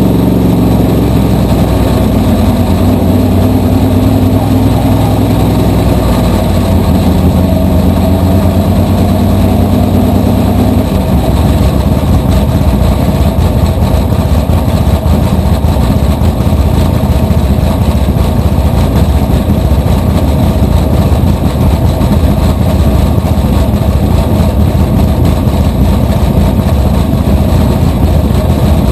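Small-block V8 engine of a supermodified race car running loud, heard from its own open cockpit. The steady engine note turns rougher and noisier about eleven seconds in.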